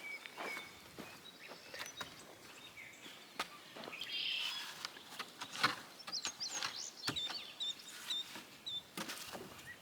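A small bird chirping in a quick run of short, high calls in the second half, over scattered knocks and clicks.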